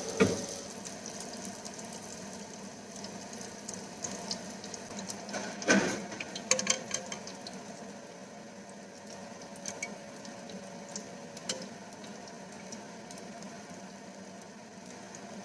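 Spring rolls deep-frying in hot oil: a steady sizzle and bubbling with many small crackling pops, and a few knocks, the loudest about six seconds in.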